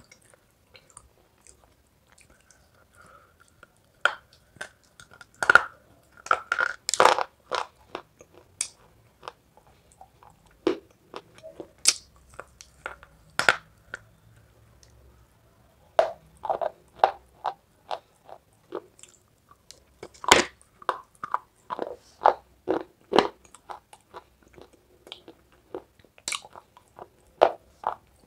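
Hard pieces of baked clay being bitten and chewed, sharp crisp crunches coming in clusters with short quiet gaps between.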